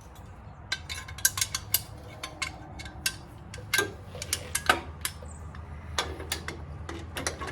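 Metal hand tools clicking and clinking on motorcycle rear-wheel hardware as it is tightened by hand, in sharp irregular clicks over a low steady hum.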